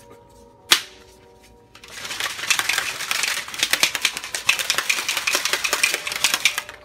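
A single sharp click, then from about two seconds in a plastic shaker cup with a wire whisk ball inside is shaken hard for about five seconds, the whisk rattling fast against the cup walls as protein powder and water are mixed.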